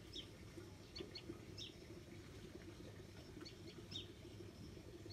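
Faint outdoor ambience with small birds giving short, high chirps, a few every second or so, over a low steady background hum.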